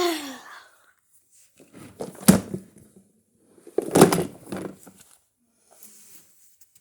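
Toys being handled: a short falling squeak at the start, then two bouts of knocking and clattering, as a toy is bumped and set down on a hard surface.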